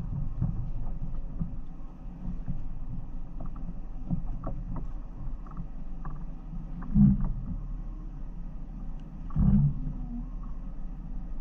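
Off-road 4x4's engine running low and steady as it crawls over a rutted mud trail. Two heavy thumps, the first past the middle and the second near the end, as the vehicle jolts over the ruts.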